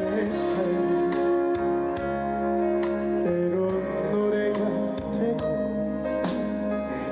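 Instrumental interlude of a Korean trot song: sustained melody notes over a regular drum beat, with no lead vocal.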